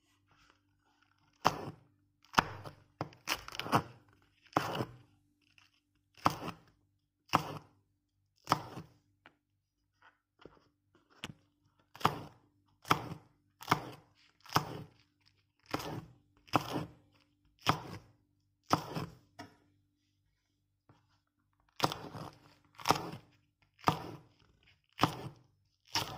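Chef's knife slicing green chili peppers into rings on a wooden cutting board: about twenty single cuts, roughly one a second, each a crunch through the pepper ending in a knock on the board, with two short pauses. A faint steady hum sits underneath.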